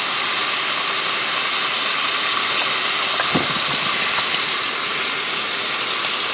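Steady sizzling hiss of top sirloin browning in a pot on a camp stove, with a single soft knock about three seconds in.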